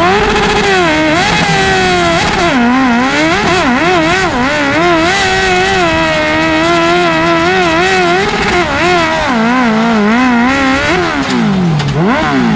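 Suzuki GSX-R 1000 inline-four motorcycle engine in a garden-pulling tractor, revving hard under load while it pulls the sledge. It climbs in pitch at the start, then the revs waver up and down, with a dip about eleven seconds in and a rise again near the end.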